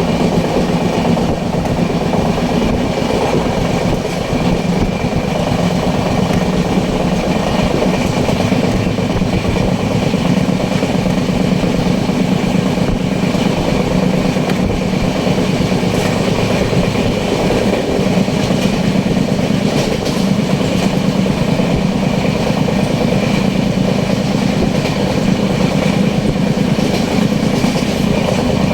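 Train in motion: steady, loud running noise of the wheels and carriages on the rails, unchanging throughout.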